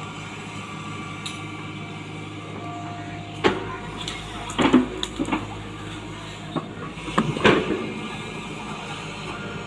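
Tata Hitachi hydraulic excavator's diesel engine running steadily while it digs, with sharp knocks and clanks from the bucket and arm: one about three and a half seconds in, a few around five seconds, and a loud one about seven and a half seconds in.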